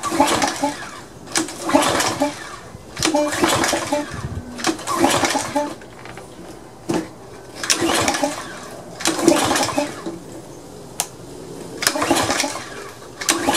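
Briggs & Stratton 875 overhead-valve engine on a pressure washer being pull-started. There are about seven yanks of the recoil cord, a second or two apart, and each one spins the engine over briefly. It never catches, the sign of an engine that is not getting fuel.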